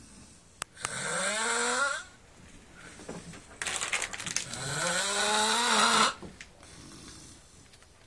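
A person snoring: two long snores, each rising in pitch, the second starting with a rapid rattling flutter.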